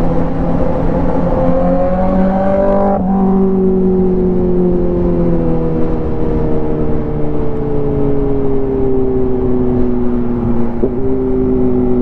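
Yamaha MT-15's single-cylinder engine at road speed with wind rush. The pitch climbs for about three seconds, drops abruptly as the throttle is closed, then falls slowly as the bike slows, with a short blip near the end as it shifts down a gear.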